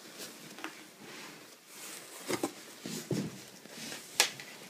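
Rustling and swishing of a goose-down top quilt's slick shell fabric being handled and pulled out of a cardboard box, with a few short, sharp swishes, the sharpest about four seconds in.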